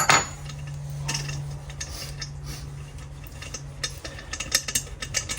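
Small metal clicks and clinks as a glow plug is worked loose from a diesel air heater with a glow plug removal tool, with a sharper clink at the start and a cluster of ticks near the end, over a steady low hum.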